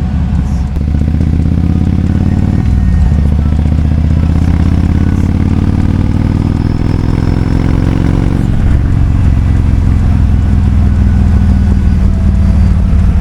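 Kawasaki Vulcan 2000's big V-twin engine running loudly through its exhaust. Its pitch changes abruptly about two and a half seconds in and again about eight and a half seconds in, and climbs slowly in between.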